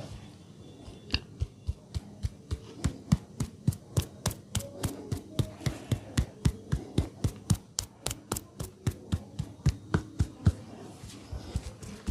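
Hands striking a person in rhythm during a head and neck massage, about four sharp slaps or chops a second, starting about a second in and pausing near the end.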